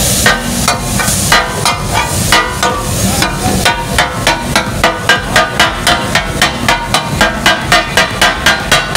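Metal spatulas chopping fish katakat on a large flat tawa griddle: a rhythmic clatter of steel blades striking the hot griddle. It goes at about three strikes a second and quickens to a steady four a second about halfway through.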